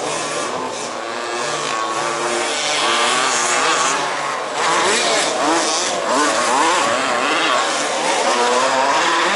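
Several 1/5-scale RC off-road race cars running together, their small two-stroke petrol engines revving up and down in overlapping rising and falling whines.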